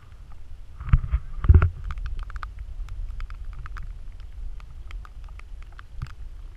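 Camera handling noise over a low rumble: two heavy bumps about a second in, then scattered light clicks.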